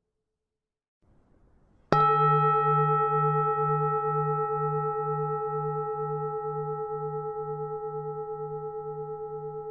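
A Vietnamese bronze temple bell struck once, then left to ring. It sounds several steady tones over a deep hum that pulses about twice a second, fading slowly.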